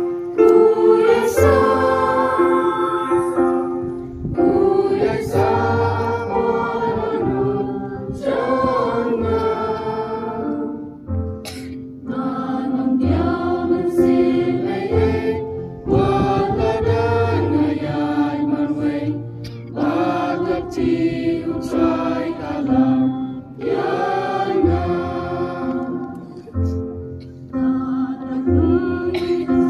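A choir singing a hymn in long phrases, amplified through loudspeakers, with low sustained notes underneath.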